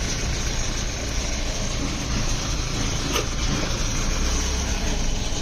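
A vehicle engine idling steadily, a constant rushing noise over a low rumble, with a faint tap about three seconds in.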